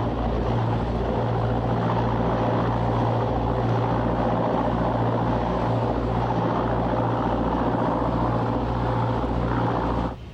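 Heavy ship's engines running steadily, with a strong low hum and a slow throb of about one and a half beats a second. The sound cuts off suddenly near the end.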